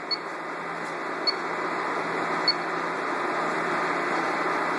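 Three short high-pitched key beeps from a Juki AMS-210EN sewing machine's operation panel, about a second apart, as the memory switch settings are stepped through. A steady hum runs underneath, slowly getting louder.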